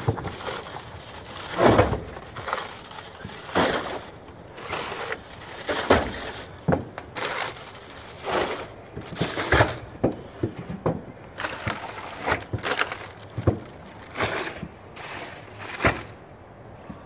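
Shrink-wrapped cases of plastic water bottles being set down and shoved into place on a pickup truck bed: irregular thuds with plastic crinkling and crackling, about one a second.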